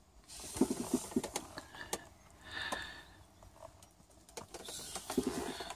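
Handling noise: scattered light clicks and taps of hard plastic parts being moved about, with a couple of short creaks.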